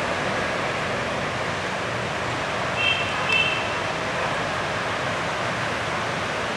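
Steady, even background hiss of outdoor ambience, with two short high-pitched chirps close together about three seconds in.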